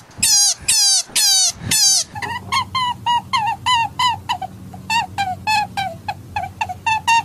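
European hare crying: five loud, high cries that fall in pitch, then a rapid run of shorter falling cries, about four a second, over a low steady hum.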